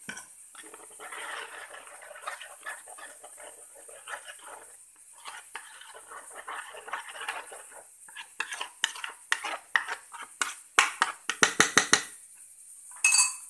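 Steel spoon stirring and scraping a thick spice paste with cornflour in a bowl, a wet scraping that turns into a fast run of sharp clicks of the spoon against the bowl in the second half, with one louder ringing clink near the end.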